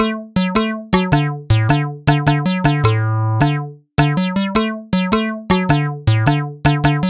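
Background music: a bouncy electronic keyboard tune of short plucked notes, about three or four a second, with a brief pause near the middle.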